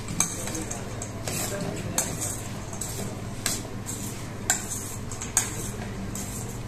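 A metal spoon stirring fried chickpeas in a stainless-steel bowl, scraping and clinking against the bowl every second or so, with a few sharper knocks.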